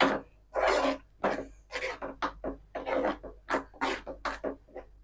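A spoon stirring thick garlic chutney paste in a non-stick frying pan, scraping and rubbing against the pan in quick, uneven strokes, about two or three a second.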